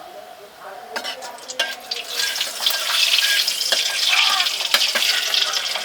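Cooking oil sizzling in a hot kadai. The sizzle comes in loudly about two seconds in, after a few light clicks, and keeps going.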